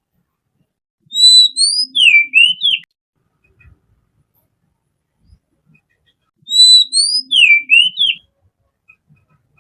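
Oriental magpie robin singing: two matching phrases of clear whistled notes, each a pair of rising notes followed by a few quick falling and rising slurs, the second phrase about five seconds after the first.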